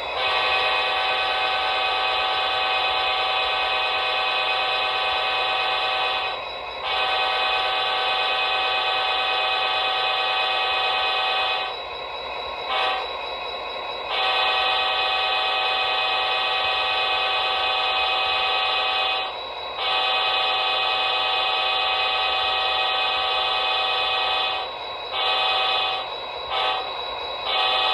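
A horn blown in long held blasts, one steady multi-note tone, broken by short gaps: five long blasts of several seconds each, then a run of shorter honks near the end.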